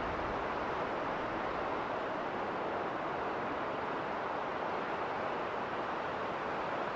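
Winter storm wind blowing during a snowstorm: a steady, even rush of noise with no gusts or breaks.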